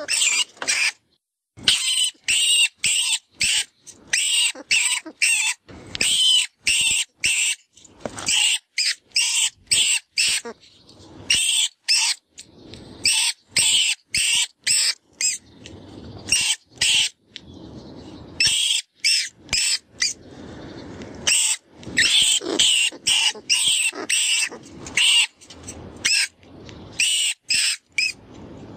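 Rat and rodent distress squeaks from FoxPro's 'Vermin Pest Control' predator call: rapid high-pitched squeaks in quick runs of about three a second, with a stretch of softer, rougher squealing in the middle. It is a prey-in-distress sound used to lure foxes.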